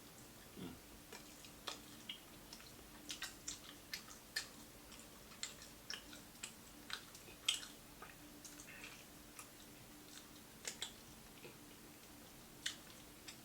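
Close-up chewing and biting of crispy fried food: irregular small crunches and wet clicks, a dozen or more spread unevenly, with a faint steady hum underneath.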